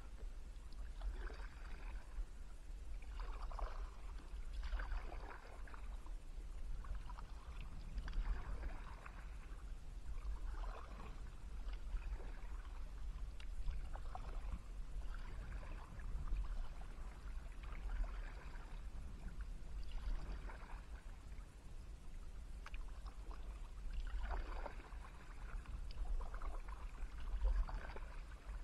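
Kayak paddle strokes: the blades dip and splash into calm river water every couple of seconds, over a steady low rumble.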